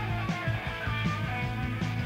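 Rock band recording: guitar over bass, with a steady drum beat.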